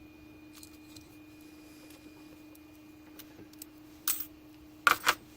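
Small metal lock parts being handled and dropped into a parts tray while a pin-tumbler lock is taken apart: faint ticks, a short rattle about four seconds in and two sharp clicks near the end.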